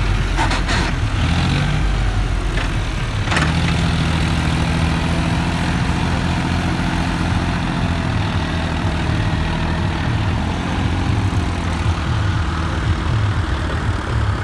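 John Deere 5050D tractor's three-cylinder diesel engine running steadily under load as it drags a krawa scraper blade through loose sandy soil. A few sharp knocks come in the first four seconds.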